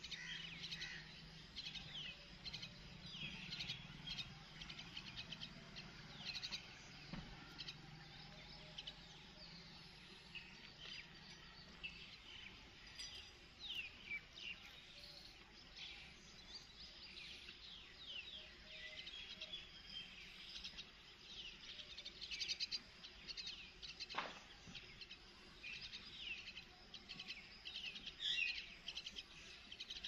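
Common mynas chirping: many short, high, falling calls in quick runs. A low steady hum lies underneath and fades out partway through.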